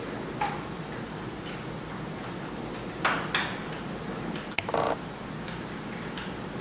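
S-scale model freight train running on the layout, a steady low rumble with a few sharp clicks and knocks around three to five seconds in.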